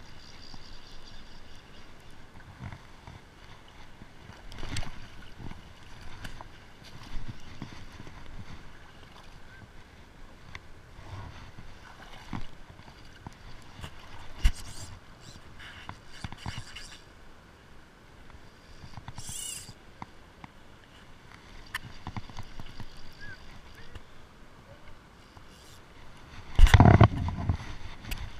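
Handling noise: a shirt sleeve and hand brushing and knocking against the body-mounted camera while a fly angler works his line and reel, with scattered rustles and taps. A loud, dense rustling burst comes near the end as the sleeve sweeps across the lens.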